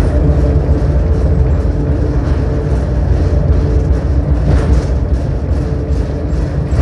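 Cable car running on its inclined track: a steady, loud low rumble with a few constant humming tones over it.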